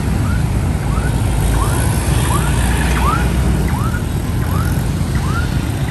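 Dense motorbike and car traffic rumbling steadily at a street intersection, with a siren whooping about twice a second over it, loudest in the middle.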